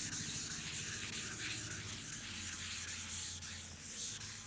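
600-grit wet sandpaper on a foam sanding pad rubbing back and forth over primer on a car body, a wet scratchy hiss in repeated strokes. The strokes are cutting down 320-grit scratches and leftover guide coat. A low steady hum runs underneath, stronger from about two seconds in.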